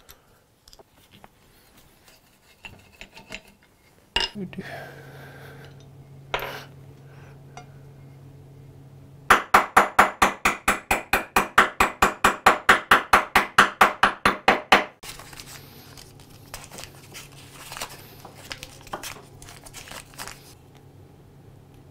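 Wooden mallet tapping a metal punch against an old Stanley-type hand plane in a quick, even run of about thirty light blows, roughly six a second, for some five seconds near the middle. Before and after, small metal parts click as they are handled over a steady low hum.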